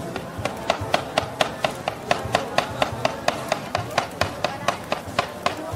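A knife chopping quickly and evenly on a cutting board, about four to five strokes a second.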